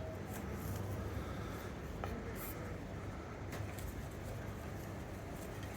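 Faint rustling and scraping of hammock cords being handled and untied from a bar, with a few small clicks.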